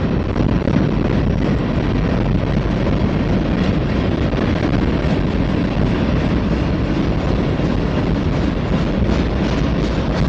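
Freight train's covered hopper cars rolling past close by: a steady low rumble of wheels on rail mixed with wind buffeting the microphone, with a few sharper clacks near the end.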